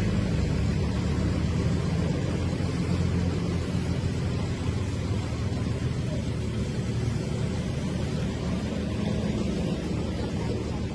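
A vehicle engine running steadily, a low even drone that holds without revving.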